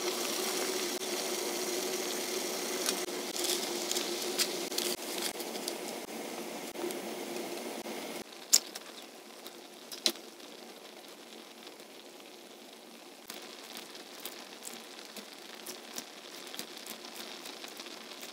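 Water at a rolling boil in a wide metal pot, bubbling over a steady hum. About eight seconds in it cuts to ramyeon noodles simmering more quietly in the pot, with a few sharp clicks and snips near the end as green chili is cut into it with kitchen scissors.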